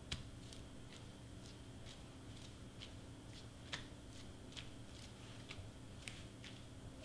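Faint, sharp little ticks at a fairly even pace of about two a second, over a low steady hum.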